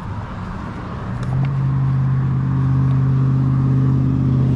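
A motor engine running at a steady pitch, coming in about a second in and staying loud.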